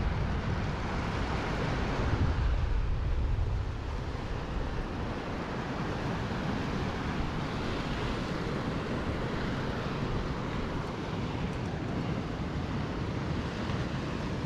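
Wind buffeting the microphone with a low rumble, strongest in the first few seconds, then settling into a steady rushing noise.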